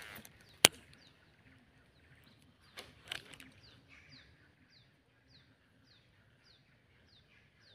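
A single sharp click about half a second in, a few softer clicks around three seconds, then a bird calling with short, falling chirps repeated evenly about twice a second.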